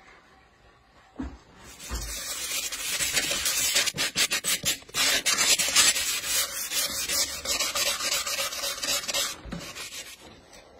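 Sanding a thin turned wooden piece on a wood lathe: a steady rasping hiss of abrasive on wood that starts about two seconds in and stops near the end, with a dull knock just before it starts and another as it stops.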